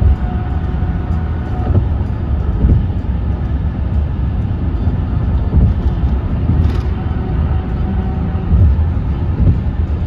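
Road noise inside a car at highway speed: a steady low rumble of tyres and engine, with a faint hum over it for the first couple of seconds.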